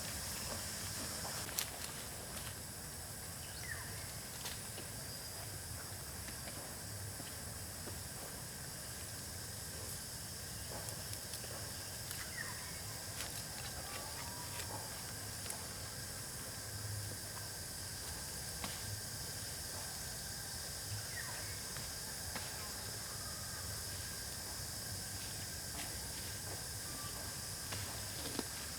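Tropical village outdoor ambience: a steady high-pitched drone of insects with a thin constant tone, a few short bird chirps scattered through, and occasional light clicks.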